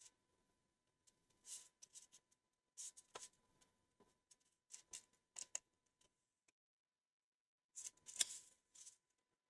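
Short crinkly rustles of a thin pre-creased wing-skin sheet being folded by hand along its creases, one after another, with the loudest cluster near the end.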